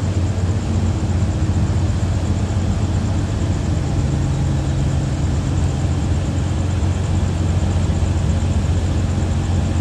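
Diesel train engine running steadily at a standstill, a constant low drone. A second low note joins about four seconds in.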